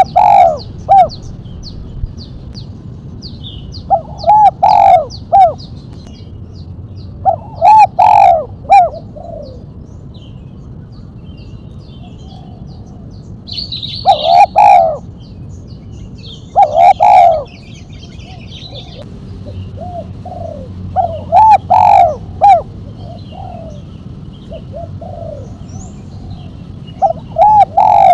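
Spotted dove (tekukur) cooing in repeated phrases of several short coos, a new phrase every three to six seconds. This is the call style keepers call 'mercik', with one sharp 'kuk'. Faint high chirps of small birds sound behind it.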